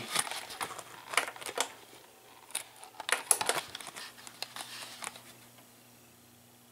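Handling noise: a string of irregular clicks, taps and rustles as the camera and equipment are handled, dying away after about five seconds to a faint steady hum.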